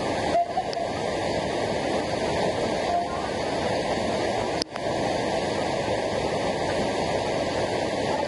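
Waterfall's water rushing steadily, one brief dropout a little past halfway.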